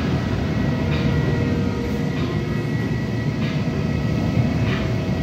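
Steady low rumble of airport apron noise with a thin, steady high whine on top, from parked airliners and ground equipment running at the gates.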